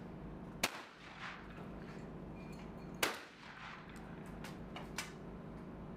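Two shotgun shots at clay targets, about two and a half seconds apart, each a sharp crack trailing off in a short echo, with a fainter click near the end.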